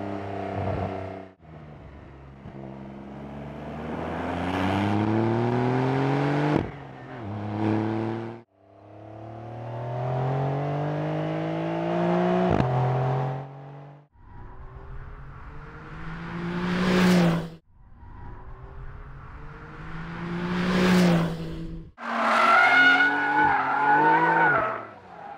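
Porsche 911 Carrera GTS's flat-six engine accelerating hard, its pitch climbing steadily in two long gear runs. The car then passes by twice, and near the end its tyres squeal with a wavering pitch as it slides through a corner.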